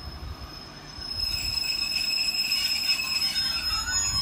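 Train running on the rails, a steady high-pitched squeal over a low rumble; the sound grows louder about a second in, with further wavering squealing tones.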